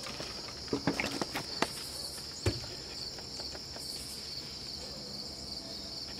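Steady, high insect chorus of crickets trilling in the field, with a few short knocks and rustles about a second in and one more about two and a half seconds in.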